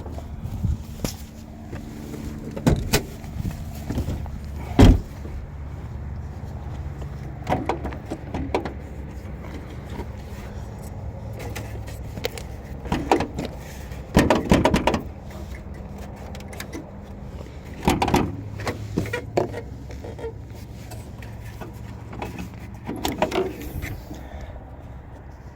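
A steady low engine hum runs throughout, with scattered short knocks and clicks over it.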